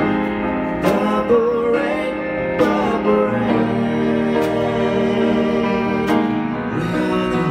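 A man singing into a microphone, accompanied by grand piano, with a sharp beat roughly every second and three-quarters.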